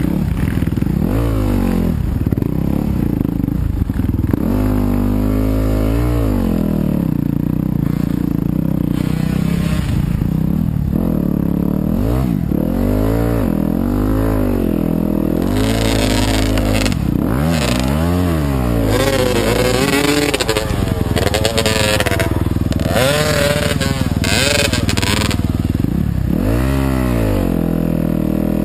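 Yamaha YZ250FX 250cc four-stroke single-cylinder dirt bike engine under race riding. The revs rise and fall over and over as the throttle is worked.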